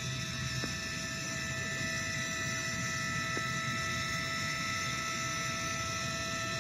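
Steady mechanical hum of running machinery with a constant high whine, unchanging throughout, and a couple of faint ticks.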